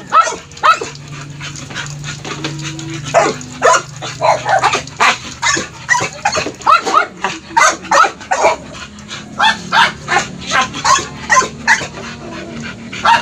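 Dogs barking and yipping in many short, quick yaps, a few each second, with a lull of about two seconds near the start.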